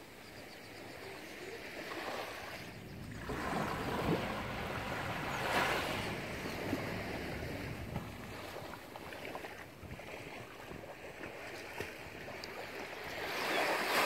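Small waves washing up onto a sandy beach, each a soft rush of water that swells and fades. The loudest comes in near the end.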